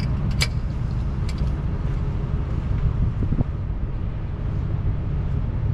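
Truck engine idling with a steady low rumble. Sharp metal clinks from the tow strap's hook hardware come twice in the first second and a half as the strap is handled.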